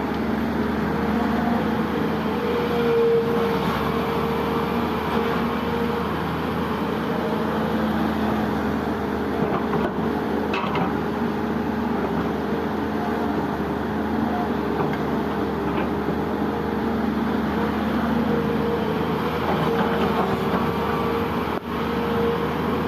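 Heavy diesel engine running steadily with an even drone, with a brief dip near the end.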